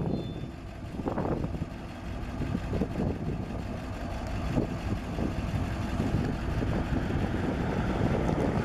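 International school bus engine idling with a steady low rumble while the bus stands stopped at the crossing.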